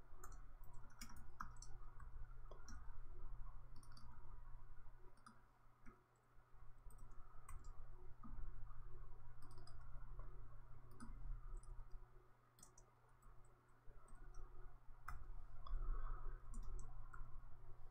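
Typing on a computer keyboard: irregular, quick key clicks over a low steady hum, with short pauses about six seconds in and again around thirteen seconds.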